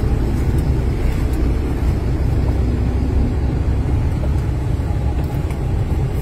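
UD Croner truck's diesel engine running as the truck drives slowly, heard from inside the cab as a steady low rumble.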